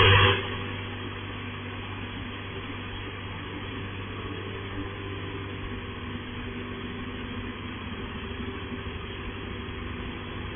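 Touchless car wash's high-pressure water jets spraying, cutting off suddenly about half a second in. A steady, quieter mechanical hum of the wash machinery with a low drone is left.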